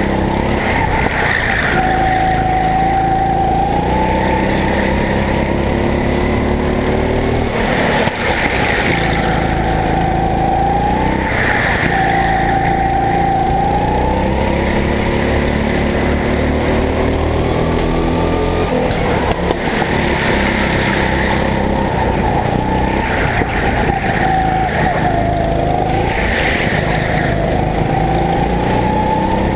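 Racing kart engine heard from the driver's seat, its note climbing as it speeds up and dropping as it slows for corners, over and over.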